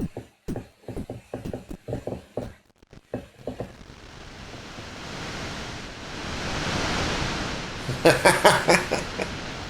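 Electronic dance loop chopped by a one-knob effect rack: rapid gated, clipped drum hits for the first three and a half seconds, then a wash of noise that swells and fades, peaking about seven seconds in, and fast glitchy stutters near the end.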